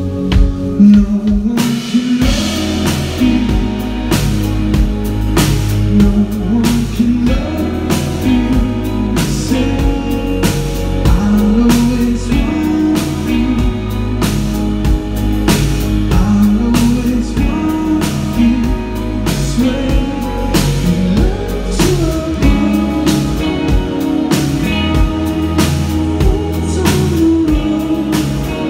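Live rock band performing: a drum kit keeps a steady beat under electric guitars and bass guitar while a male lead vocalist sings. The drums and cymbals fill out about a second and a half in.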